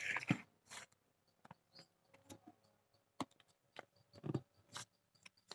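Quiet handling of a hardcover book: its paper dust jacket sliding and rustling as it is taken off, with scattered light taps and clicks of the book against the table and hands.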